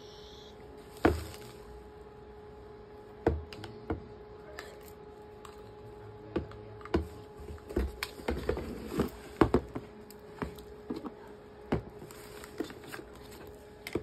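Handling noise: a hair dryer, its coiled cord and its plastic nozzle and diffuser attachments being picked up and set down on a cardboard box. It comes as scattered sharp clicks and knocks, a few in the first half and many close together in the second half, over a faint steady hum.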